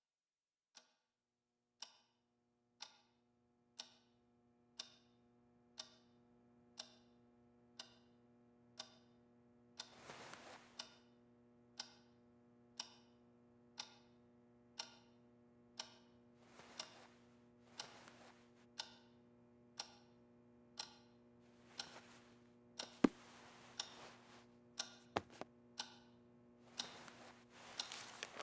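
Wall clock ticking steadily, about once a second, over a low steady hum that comes in a second or two after the first tick. In the second half a few soft rustling swells and two sharper clicks sound between the ticks.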